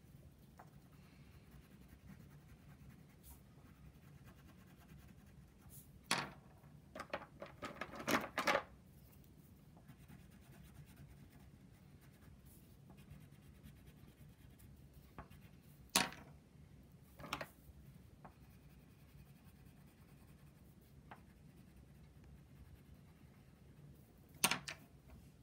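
Wax crayon scribbling faintly on paper over a wooden tabletop, broken by a few short, sharp taps and knocks on the table, a little cluster of them near the start and single ones later.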